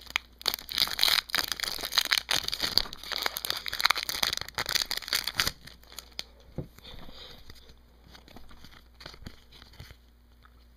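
Foil wrapper of a hockey card pack crinkling and tearing as it is opened. Dense crackling lasts about five seconds, then it dies down to fainter, scattered rustles.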